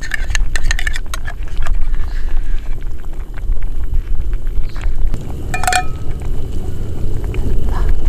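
Wind buffeting the microphone as a loud, uneven low rumble, over small clicks and scrapes of a metal spoon scooping tuna out of a can into a cooking pot, with one ringing metal clink a little past halfway.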